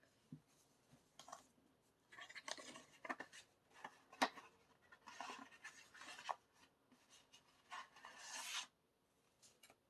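Paper envelope being opened and handled: soft rustling and sliding of paper in short bursts, with a single sharp tick about four seconds in.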